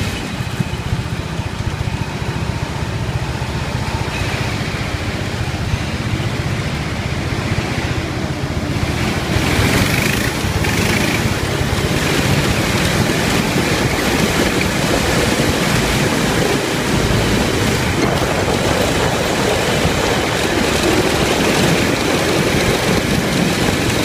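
Small ride-on car driven around an indoor track: its running noise and tyre rumble under rushing wind on the microphone, growing louder about nine seconds in.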